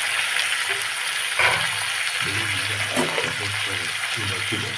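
Raw cauliflower frying in hot oil in a pan on a medium flame: a steady sizzle, with a few light clicks.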